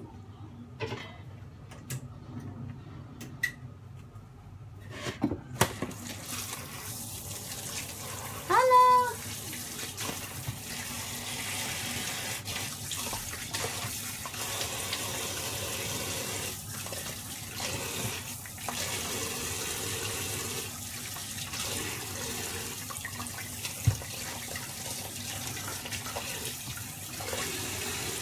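A few clinks of a pan and lid on a gas stove, then a kitchen tap running steadily into a sink. There is a short rising squeak about eight seconds in and a single knock near the end.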